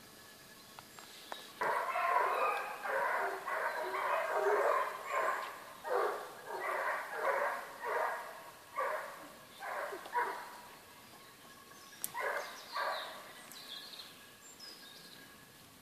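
Hunting dogs barking in a fast, even series, about two barks a second for some nine seconds, then two more barks after a short pause: hounds baying at a wild boar.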